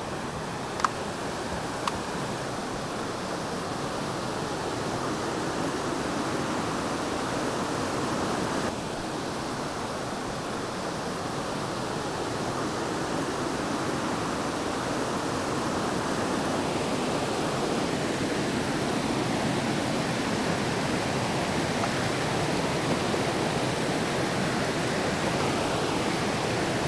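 Rushing water of a rocky brook and its falls, a steady noise that grows slowly louder, with two sharp clicks about one and two seconds in.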